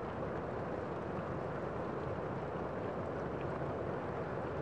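Steady city street din of traffic and general outdoor noise, even throughout with no distinct events.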